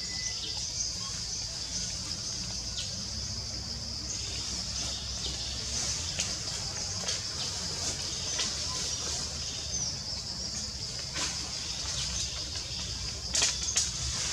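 Forest ambience: a steady, high-pitched insect drone over a low rumble, broken by a few short clicks or snaps, the strongest near the end.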